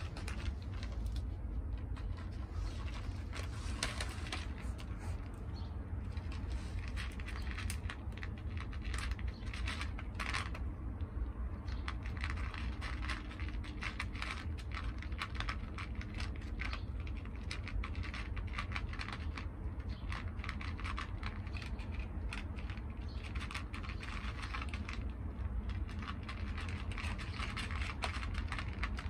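Two cats crunching dry kibble and pushing it around in an aluminium foil tray: a constant, irregular run of small crunches and clicks, over a steady low rumble.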